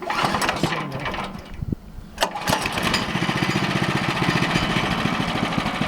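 Small gasoline engine of a portable bandsaw sawmill starting up: irregular noise and a sharp click in the first two seconds, then it catches and runs steadily from about two and a half seconds in.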